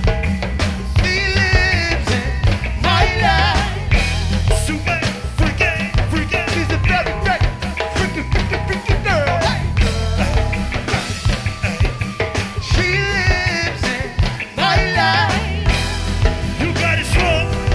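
Live go-go band playing an upbeat groove: drum kit and heavy bass, with a wavering lead voice or horn line over the top.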